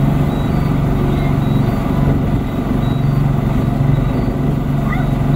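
225 hp Johnson outboard motor running at a steady cruising speed, a low even drone that does not change in pitch.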